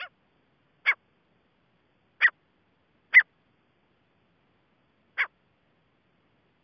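Grey francolin (teetar) giving short single call notes, five of them at uneven gaps of one to two seconds. The first is faint.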